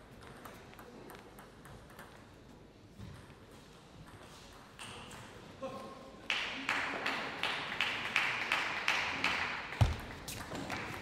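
Celluloid-type table tennis ball clicking sharply on the table and rubber bats, a series of short ticks. About six seconds in, a louder noisy spell rises under the clicks, and a low thud comes near the end as a rally gets under way.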